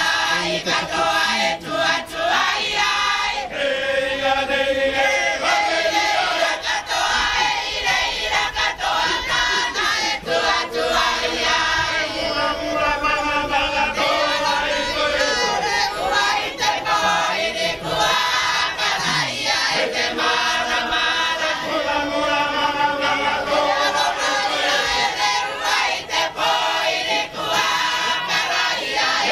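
A mixed choir of men and women singing together, many voices in a steady, continuous song.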